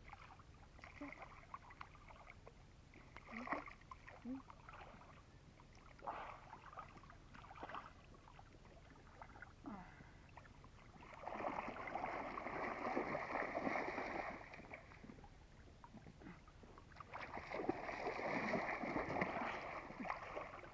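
Water splashing and sloshing in short irregular strokes, with two longer stretches of continuous heavy splashing about halfway through and near the end.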